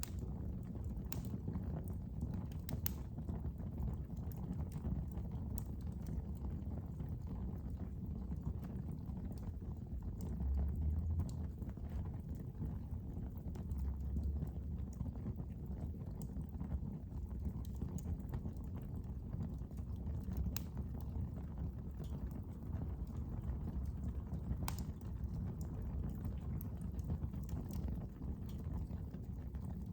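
Fire burning in a fireplace: a steady low rumble of flames with scattered, irregular sharp crackles and pops.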